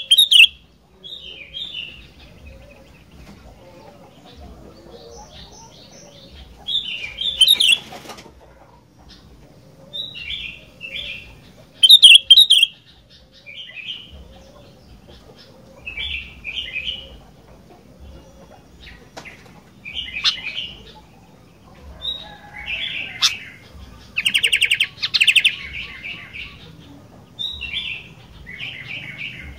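Sooty-headed bulbul singing: short, bubbly phrases of chirping notes repeated every second or two, some loud, with a denser chattering run about three quarters of the way through.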